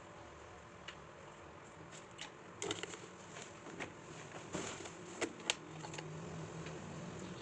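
Light kitchen clatter while cooking: a few scattered clicks and knocks of utensils or dishes being handled. A low steady hum comes in near the end.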